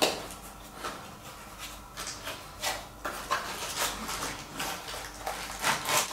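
A cardboard box being handled and opened by hand: irregular scrapes, rubs and light taps of cardboard, with a sharp knock at the start.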